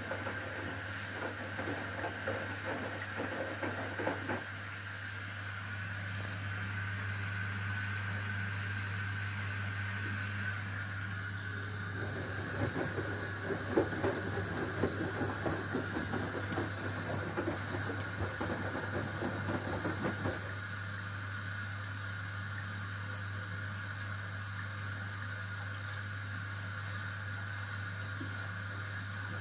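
Whirlpool FSCR90425 front-loading washing machine running its rinse cycle: a steady hum with a hiss of water, and for several seconds midway a rougher stretch of water sloshing in the drum.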